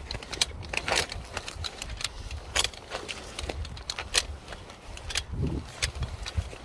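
Metal climbing hardware on a tower climber's harness, carabiners and hanging tools, clinking and jangling in irregular clicks during a descent down the tower, over a low steady rumble of wind on the microphone.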